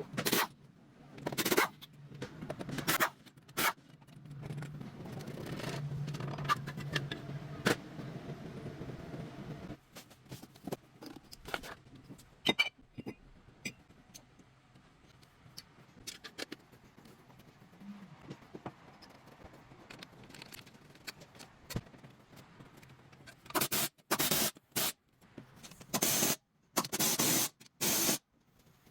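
Workshop tool work on a wheel hub: metal clanks and scraping, with a steady low hum for several seconds in the first third and a run of loud, short bursts near the end.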